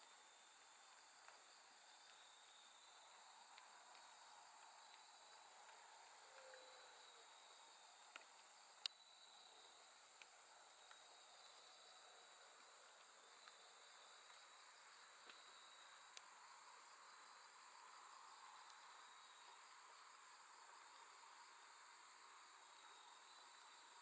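Faint chorus of late-summer night grass insects: a steady high trill with a thinner steady tone beneath it, and very high chirps pulsing about once a second through the first half. One sharp click about nine seconds in.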